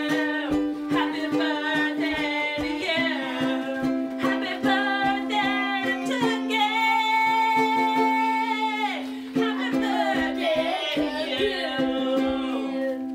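Ukulele strummed quickly over a steady held low note, with a melody line on top. About two-thirds of the way through, one long high note is held for a couple of seconds and then slides down.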